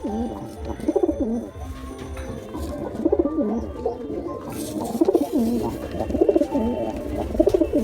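Pigeons cooing: low, rolling coos repeated one after another without pause, over a faint steady low hum.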